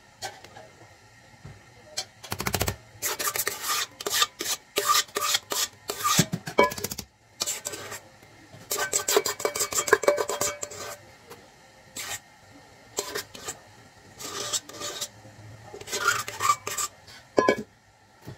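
Metal spoon scraping and spreading a thick cream layer in a square metal cake pan, rasping against the pan in runs of quick strokes with short pauses between.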